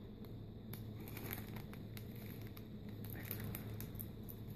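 Faint crinkling and light scattered clicks as Pokémon trading cards and a foil booster-pack wrapper are handled, over a low steady hum.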